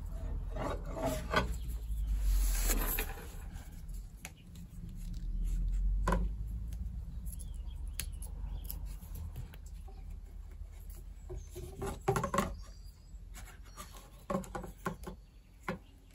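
Thin paracord strand being wrapped and pulled tight around a wooden arrow shaft to bind on an arrow tip: irregular rubbing and rustling of cord with small clicks and taps of handling on a wooden tabletop.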